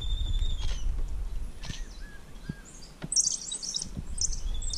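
High-pitched animal chirping: a held high whistle at the start, a few faint short peeps, then a quick burst of very high chirps about three seconds in.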